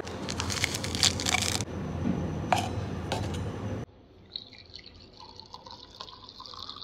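Water being poured into a container, with a few clicks and clinks. About four seconds in the sound drops abruptly to a quieter, thinner pour.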